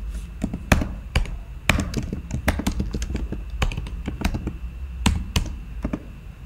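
Keystrokes on a computer keyboard, typing out a short command at an uneven pace, with a few louder key presses among them.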